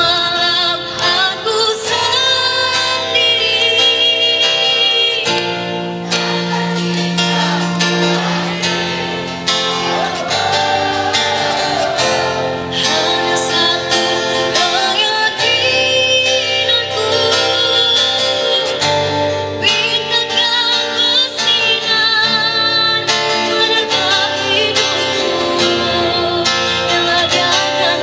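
Live band music with a girl singing lead into a microphone, backed by electric guitars, bass, acoustic guitar and a drum kit.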